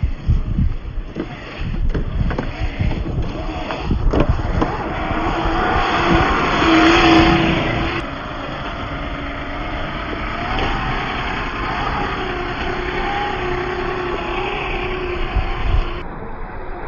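Electric motor and gear drive of a Traxxas TRX-4 RC crawler whining as it drives off-road, the pitch rising and falling with the throttle. Low thumps and rumble come from the truck working over rough ground, mostly in the first few seconds.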